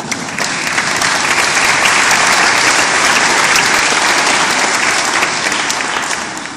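Audience applauding: the clapping swells within the first second, holds steady, and dies away near the end.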